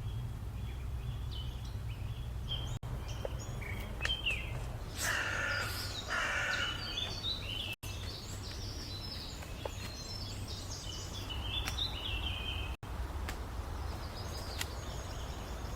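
Birds chirping and calling over a steady low rumble of outdoor background noise, with a harsher, rasping call about five seconds in. The sound drops out briefly about every five seconds.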